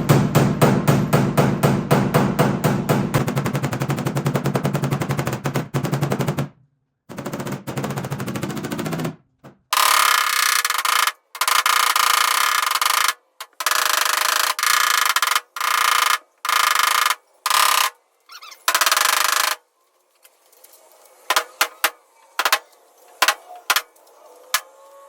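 A PDR blending hammer tapping rapidly on the steel bedside of a Toyota Tundra, about eight blows a second, knocking down the high crown around a dent. It stops after about six seconds. From about ten seconds in, a run of short on-off bursts of a steady electric hum follows, each about a second long; this is typical of a PDR hot box induction heater being pulsed to shrink the metal. Faint clicks come near the end.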